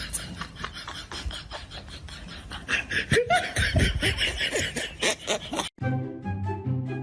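People laughing loudly over a busy, clicky home-video soundtrack. About five and a half seconds in there is a sudden cut to background music with a steady bass line.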